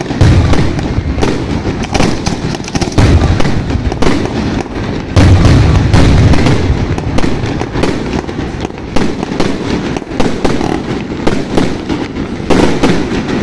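Aerial fireworks display: a dense, continuous barrage of rapid bangs, heaviest about three seconds in and again around five to six seconds in.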